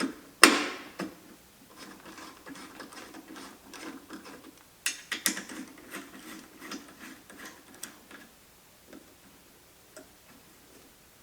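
Light metallic clinks and a faint run of small ticks as two 3/8 button head bolts are set into a steel vise base's top plate and threaded in. There is a sharp clack near the start and a couple of louder clicks about five seconds in.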